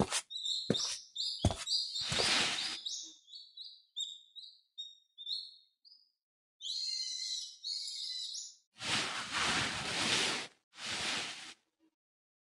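Small birds chirping in quick runs of short rising and falling notes, with a denser burst of chatter about seven seconds in. There are a few short knocks near the start and several hiss-like bursts of noise, each about a second long.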